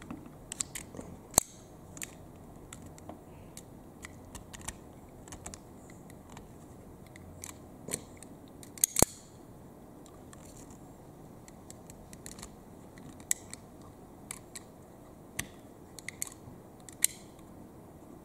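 Stanley retractable utility knife's slider clicking as the blade is pushed out and drawn back into its locking notches: scattered sharp metal clicks, the loudest about a second and a half in and about halfway through.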